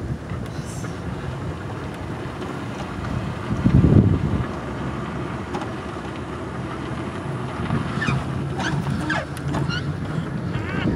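Wind buffeting the microphone over the low rumble of an open electric Jeep kit car rolling slowly, with a louder gust about four seconds in. A few short high chirps come near the end.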